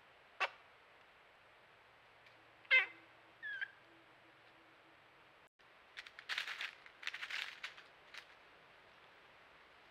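Eastern gray squirrel moving through dry leaf litter: a quick run of crackling rustles about six to eight seconds in. Earlier, a short wavering animal call is the loudest sound, with a brief chirp just after it.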